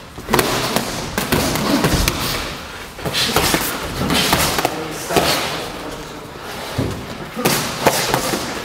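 Boxing gloves landing punches in sparring: a rapid, irregular series of thuds and slaps of padded gloves on gloves and headgear.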